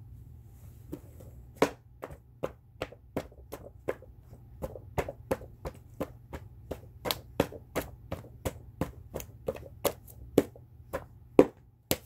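A quick series of sharp taps or knocks, about three a second and uneven in loudness, starting about a second and a half in and stopping just before the end.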